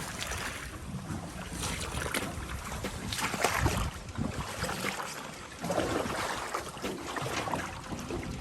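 Wind on the microphone with irregular rustling and light knocks, no engine running.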